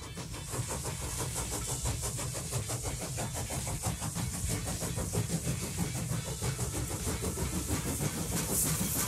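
Battery-powered Trackmaster Turbo Speed Thomas toy engine running around plastic track: a steady motor whir with a rapid, even rattle of the wheels and gears on the track.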